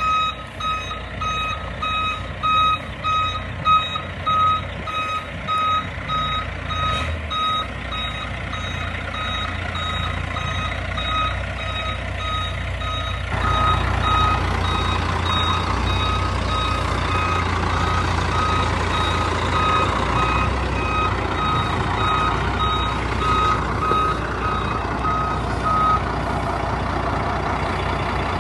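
Vehicle back-up alarm beeping in a steady repeating pulse over the low rumble of a running truck engine. The engine noise grows louder and fuller about halfway through, and the beeping stops near the end.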